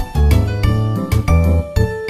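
Background music with a quick, steady beat over a repeating bass line.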